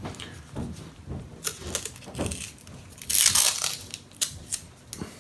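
Handling noises from a masking-taped pine block and a roll of masking tape: scattered light knocks and taps, with a brief scraping rustle of tape and wood about three seconds in.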